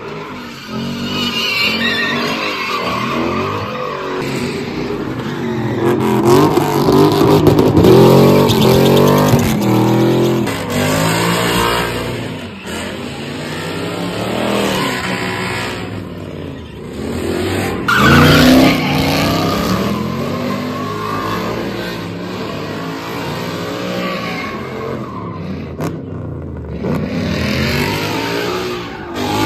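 Muscle car engines revving hard with tyres squealing as the cars spin donuts; the engine pitch climbs and falls again and again with the throttle, loudest about a quarter of the way in and again just past the middle.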